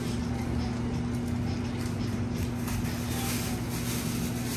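Steady electrical hum of commercial kitchen equipment such as refrigeration or a soda fountain, with faint rustling of wrapping paper and plastic as a sandwich is wrapped.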